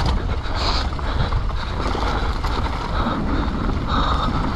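Downhill mountain bike running fast down a dirt trail: wind rushing over the microphone, with the steady rumble and constant small knocks and rattles of the bike over rough ground.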